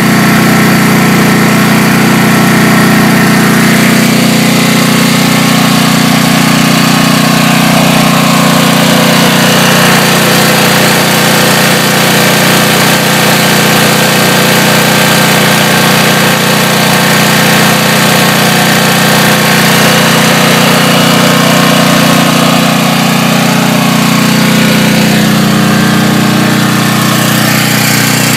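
Briggs & Stratton 11 hp generator engine running steadily on natural gas through a tri-fuel carburetor conversion, at about 3,600 rpm. It runs loud and even, the mixture opened up enough to run smoothly.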